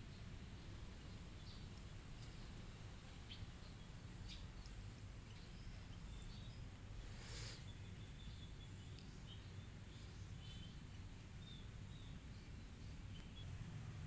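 Faint garden ambience: a steady high-pitched insect drone with a few short bird chirps scattered through, over a low rumble, and a brief rush of noise about seven seconds in.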